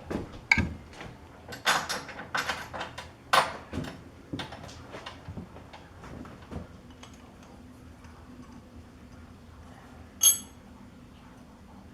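Metal clicks and knocks from hand tools and parts being handled while adjusting a drill press setup, clustered in the first half. About ten seconds in comes one sharp, ringing metallic clink, over a faint steady hum.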